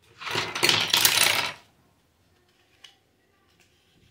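Small plastic toy kitchen pieces clattering and rattling against one another for about a second and a half as a hand digs through the pile. A couple of light clicks follow.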